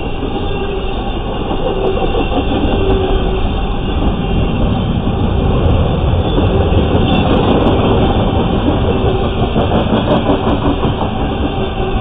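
Empty intermodal well cars of a freight train rolling past, their steel wheels giving a steady heavy rumble on the rail. The rumble grows louder about a third of the way in, with a few sharp clicks around the middle and again later.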